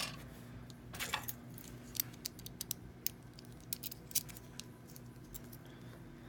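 Scattered small metallic clicks and taps of a lock and its retaining clip being handled and worked on, over a steady low hum.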